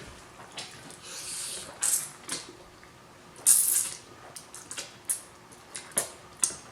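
Close-up eating sounds of spaghetti in tomato sauce: noodles slurped in two hissing pulls, the louder one past the middle, among wet chewing smacks and clicks.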